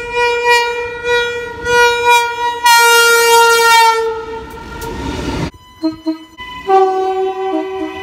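Aurizon diesel freight locomotive's horn sounding several short blasts and then a longer, louder one as the container train passes, with rumble and wheel noise from the train. About five and a half seconds in the sound breaks off, and a second, lower-pitched horn from a Queensland Rail electric passenger train sounds in short blasts.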